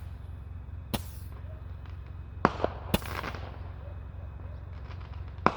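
Fireworks going off: about five sharp bangs, one about a second in, a quick cluster of three about two and a half seconds in with crackling trailing after them, and another near the end.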